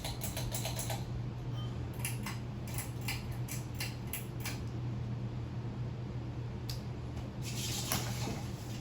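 Scattered sharp clicks and light clattering, in small clusters, over a steady low hum.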